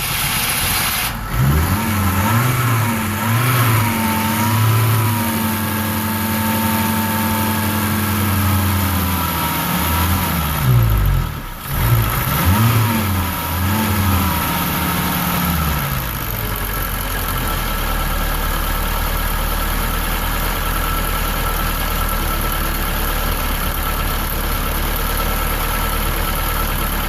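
BMW 1600 ti four-cylinder engine blipped up and down a few times and held at raised revs, dropping and blipped again, then settling to a steady idle for the last ten seconds or so.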